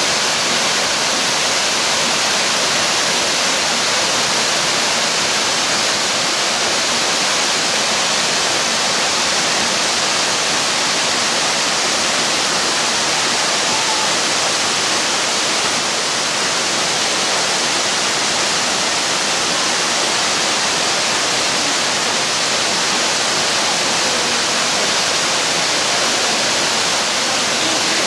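Water pouring down the Dzhur-Dzhur mountain waterfall: a loud, steady, even rush of noise that does not change.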